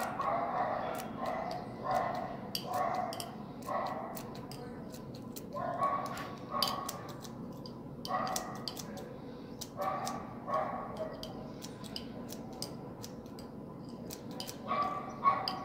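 A dog barking repeatedly in bouts of several quick barks with short pauses between, over sharp clicks of scissors snipping stray sisal fibres.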